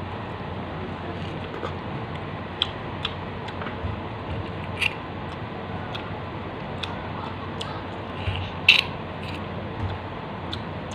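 Scattered wet mouth clicks and smacks of a person biting and chewing soft ripe mango, with one louder smack late on, over a steady background hiss.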